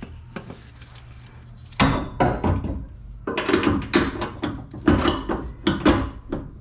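Repeated metallic knocks and clanks, starting about two seconds in, as a new bolt is forced into the equalizer bracket of a tandem-axle trailer suspension.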